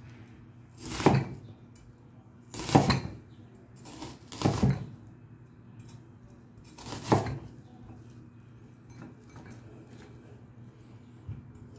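Kitchen clatter: five separate knocks of dishes or utensils, each ringing on briefly, spaced one to three seconds apart, with a faint steady hum underneath.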